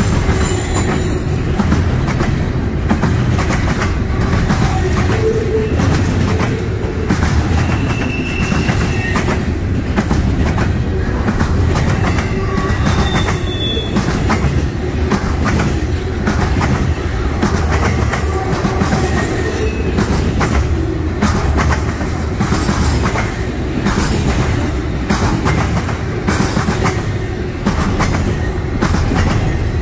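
Intermodal freight train's double-stack and trailer cars rolling past at close range: a steady rumble with continuous clatter of steel wheels on the rails, and a few brief high wheel squeals.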